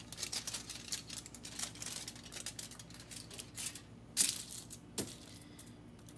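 A plastic bag crinkling and rustling as it is handled, then two sharp knocks about four and five seconds in as things are set down on a wooden table.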